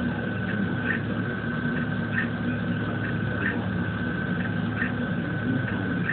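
KITT-style scanner sound effect from the car's red front light bar: a steady high tone with a short swoosh repeating about every 1.3 seconds, over a low steady hum.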